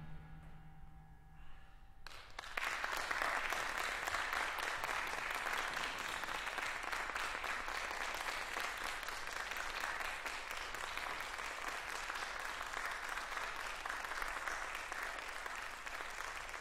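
The wind band's final chord dying away in the hall's reverberation, then about two seconds in the audience breaks into steady applause.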